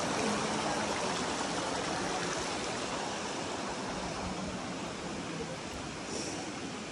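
Mountain stream rushing: a steady noise of flowing water that slowly gets a little quieter.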